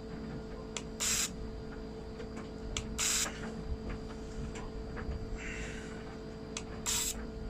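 Fuel injector pulsing brake cleaner through its nozzle on a test machine: three short hissing sprays about two seconds apart, with faint ticks between them over a steady hum.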